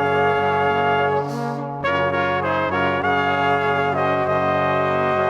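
Music played on brass instruments: held chords that change every second or so, with a short breathy hiss between notes about a second and a half in.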